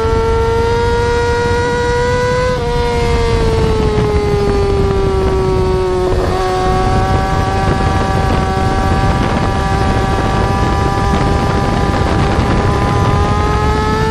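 Yamaha R6 inline-four sport bike engine held at high revs, giving a steady high-pitched whine. The pitch eases down from about two and a half seconds in, dips briefly around six seconds, then climbs a little near the end.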